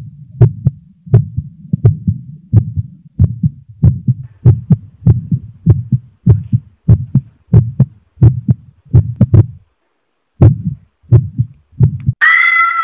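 Heartbeat sound effect: a regular run of deep thumps that pauses briefly about ten seconds in, then a few more beats. Near the end a high held tone cuts in over it.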